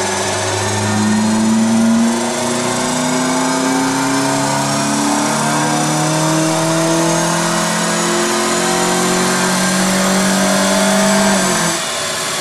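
Nissan Altima engine breathing through a Takeda short ram cold-air intake, revving hard on a chassis dyno with the front tyres spinning on the rollers. Its pitch climbs, drops back about every three seconds, climbs again, and falls away near the end as the run finishes.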